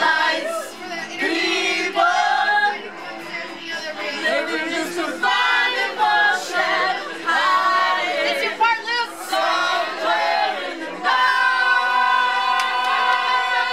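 A group of men and women singing loudly together, karaoke-style, several voices at once. Near the end they settle into a long held note.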